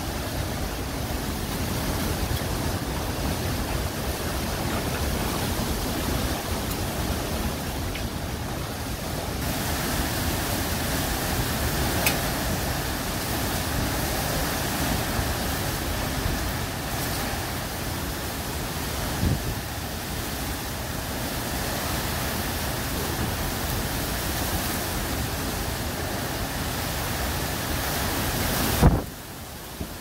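Derecho wind and driving rain blowing through trees in a loud, steady rush. A few sharp knocks cut through it. Just before the end comes a loud click, and then the sound drops off sharply.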